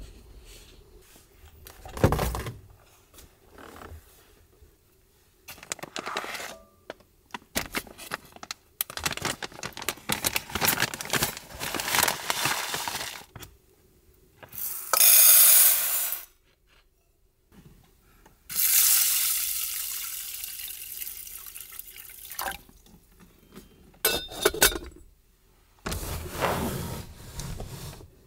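Dry rice poured from a small metal cup into a metal pot, then a few seconds later a longer pour of water into the pot that tapers off, amid clicks and rustles of handling cloth and packaging.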